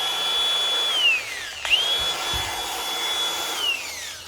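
Cordless angle grinder run with no load, switched on twice. Each time it spins up quickly to a steady high whine, holds it, then winds down in a falling whine as it coasts to a stop after the trigger is released.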